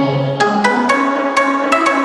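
Instrumental intro theme music: a melody of short stepping notes over a steady ticking beat.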